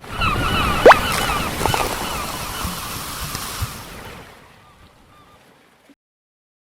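A rushing, surf-like noise with short, repeated bird-like calls over it. A sharp rising whistle comes about a second in, and the whole sound fades away over the last couple of seconds.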